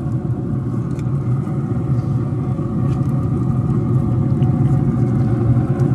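Pellet smoker running: a steady low hum and rumble with no change in pitch.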